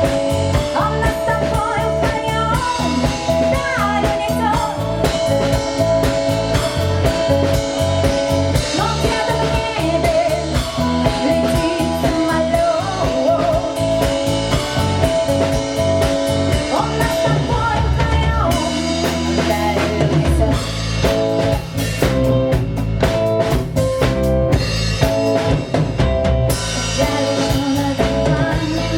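Live rock band playing, with drum kit and guitar; the bass drops out briefly about two-thirds of the way through, then comes back in.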